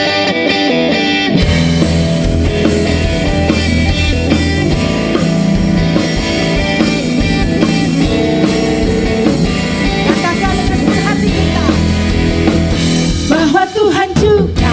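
Live worship band playing an instrumental passage on Roland Fantom-S88 keyboard, electric bass guitar, drum kit and electric guitar. The bass and drums fill in about a second and a half in, and a woman's singing voice comes in near the end.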